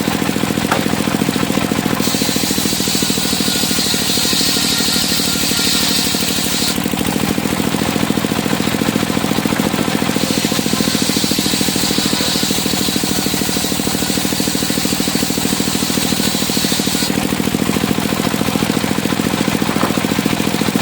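Engine-driven circular sawmill running steadily, with two stretches of high-pitched hissing whine about two seconds in and again about ten seconds in, as the blade cuts through timber.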